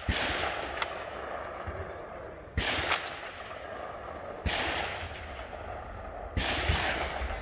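About six rifle shots fired slowly, one at a time and in quick pairs, each followed by a long echoing tail.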